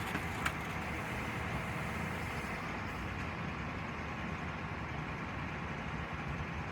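Engine of a heavy vehicle running steadily, with a short sharp click about half a second in.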